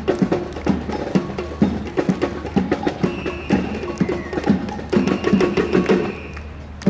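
Marching band drum line playing a cadence: rapid, rhythmic drum strikes with sharp woodblock-like clicks, dropping in level for the last second or so.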